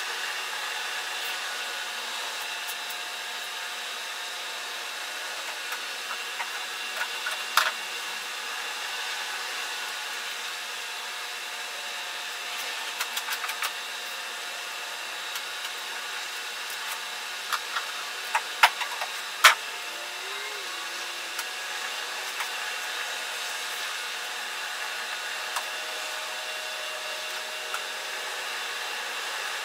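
A steady whirring hiss runs throughout, with scattered light clicks and taps from tools and containers handled while mixed epoxy is packed into a seam of a plywood boat hull. The sharpest knocks come about a quarter of the way in and again about two-thirds in.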